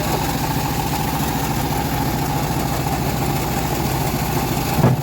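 Engine of a homemade bandsaw mill running steadily, with a brief thump near the end.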